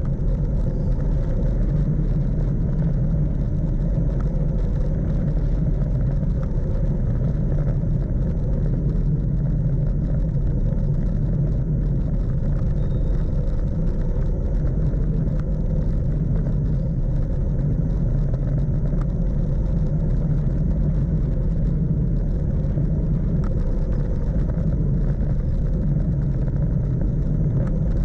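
Steady rush of wind on the microphone with the rumble of a Brompton folding bike's tyres on asphalt, riding downhill at speed. A deep, even roar without breaks.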